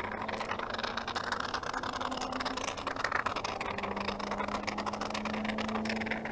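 An aerosol can of expanding spray foam sputtering and crackling as foam is pushed out through its straw into insulation gaps. A steady hum runs underneath.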